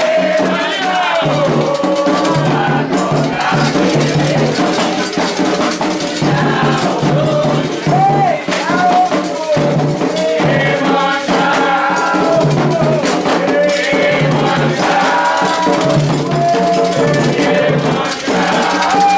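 Candomblé ritual chant: voices singing over percussion with shaken rattles, continuous throughout.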